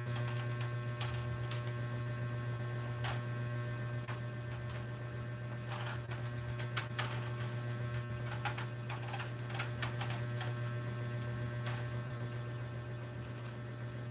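A steady low hum, with scattered faint clicks and knocks of plastic parts as a ring light is handled and fitted onto its tripod stand.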